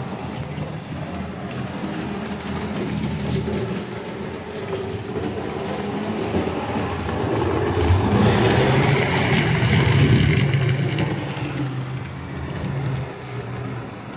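HO-scale model steam locomotive running on the layout's track, its motor humming with wheel noise on the rails. It grows louder as the train passes close, loudest from about eight to eleven seconds in, then fades.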